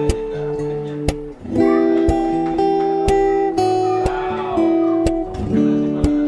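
Background music: acoustic guitar playing sustained notes and chords, with a soft tap marking a steady beat about once a second.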